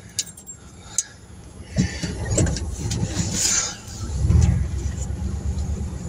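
Two sharp clicks, then a car engine heard from inside the cab, its low rumble rising and loudest about four seconds in as the vehicle pulls away.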